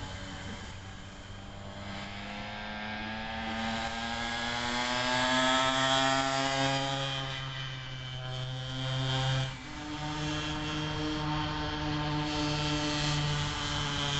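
Small 50 cc two-stroke engine with a racing big-bore kit and race carburettor, powering a converted kick scooter at high revs. Its pitch climbs and it grows louder as it comes closest about five seconds in, then drops away, with a sudden step in pitch about nine and a half seconds in.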